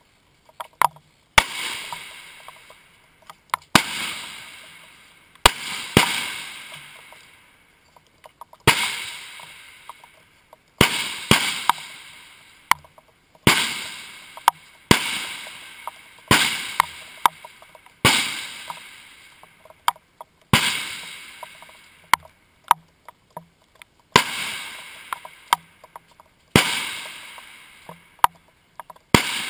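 Rifle shots along a long-range firing line, a sharp crack every one to three seconds at uneven intervals, each followed by a long fading echo, with fainter cracks in between.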